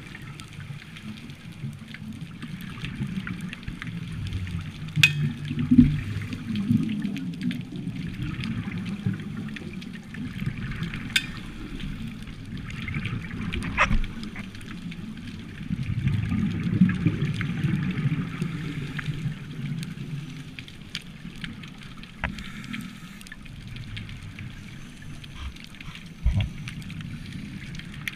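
Underwater sound of a scuba diver's exhaled regulator bubbles, a low gurgling rumble that swells twice, heard through an underwater camera housing. A thin crackle runs underneath, with a few sharp clicks.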